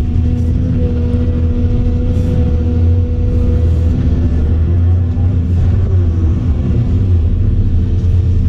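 Volvo EC700CL excavator's diesel engine running steadily under working load, heard from inside the cab as a low, even drone with a steady hum above it while the boom and bucket are worked.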